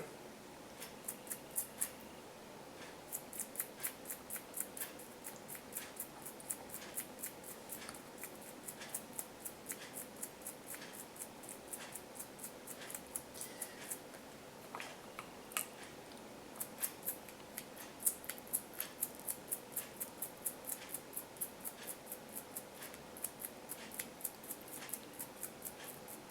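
Toothbrush bristles scrubbing an AirPod's speaker grille in quick short strokes, about three a second, in long runs with a couple of brief pauses.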